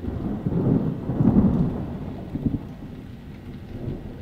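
A thunderclap with rain: a low rolling rumble that starts suddenly, is loudest about a second in, then slowly rolls away over the steady hiss of rain.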